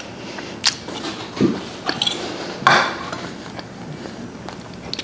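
Light clinks and knocks of cutlery against dishes, a handful of separate short strikes with the loudest a little under three seconds in.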